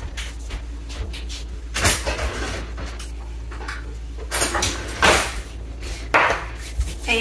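A few short wooden knocks and scrapes from a bamboo salt box being handled, its lid opened and closed, while pinches of Himalayan pink salt are sprinkled over the dish.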